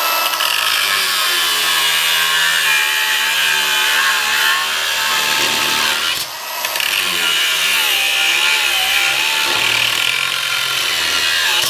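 Milwaukee cordless angle grinder cutting through a roughly half-inch non-hardened steel chain: a loud, steady, high grinding whine that eases off briefly a little past halfway, then carries on.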